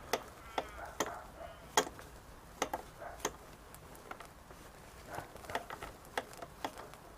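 Scattered sharp clicks and taps from a spanner on a motorcycle brake bleed nipple and the brake being pumped during a brake bleed.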